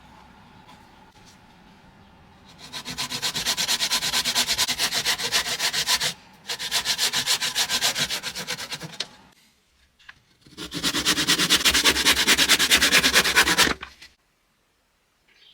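Sanding on wood in three bursts of a few seconds each, every burst a quick, even run of strokes, with short pauses between them.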